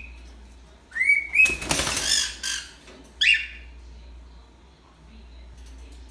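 Cockatiel calling: two short rising chirps about a second in, a harsher, noisier call right after, then one loud falling whistle a little after three seconds.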